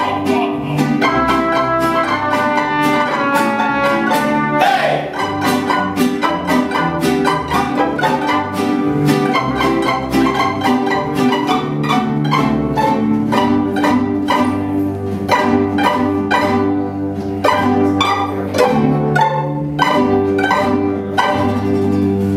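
Mariachi ensemble playing an instrumental Christmas carol: violins carry the melody over a steady strummed rhythm and bass.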